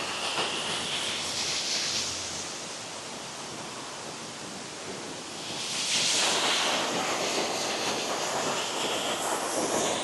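Waterfall rushing: a steady wash of falling water, growing louder about six seconds in.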